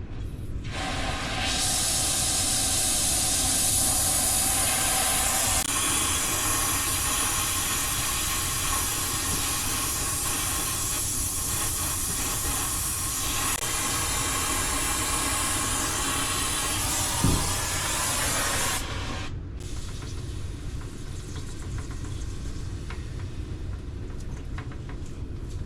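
Compressed gas hissing out through the yellow hose of a refrigeration gauge set, steady and loud. It starts about a second in and cuts off suddenly about three-quarters of the way through, with a short knock shortly before it stops.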